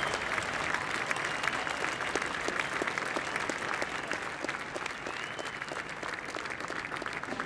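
Large audience applauding, a dense patter of clapping that thins out slightly toward the end.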